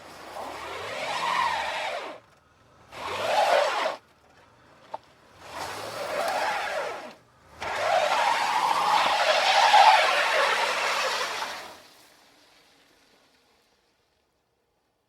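Car tyres skidding four times in succession: a two-second skid, a short one, another of about two seconds, then the longest and loudest of about four seconds, with an engine note underneath.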